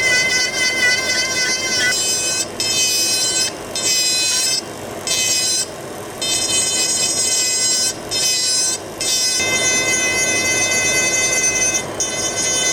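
High-speed rotary carving tool whining steadily as its bit grinds wood, with a rasping grind under the whine. The pitch shifts a little now and then, and the sound drops briefly several times as the tool eases off the work.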